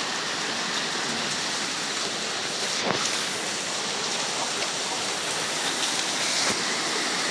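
Heavy rain pouring down steadily, a dense even hiss of rain on surfaces, with a faint tick about three seconds in.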